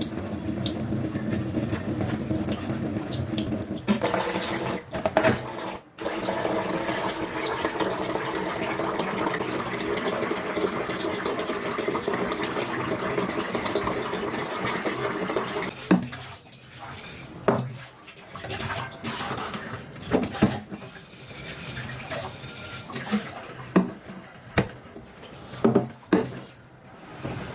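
Water running steadily for about sixteen seconds, then it stops and a series of separate knocks and clinks follows.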